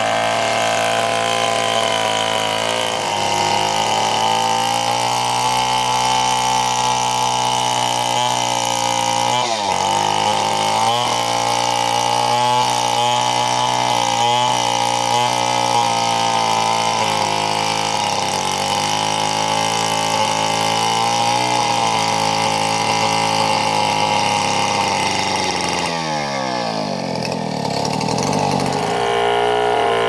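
Two-stroke chainsaw with a long bar ripping lengthwise through a large trembesi log, running steadily under load. Its pitch sags briefly about nine seconds in, then sinks and climbs back near the end.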